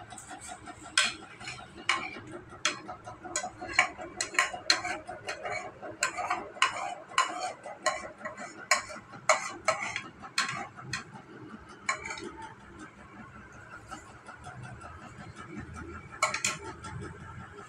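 A quick, irregular series of sharp clicks and clinks, about two a second, that stops around two-thirds of the way through, with one more click near the end. Faint voices are in the background.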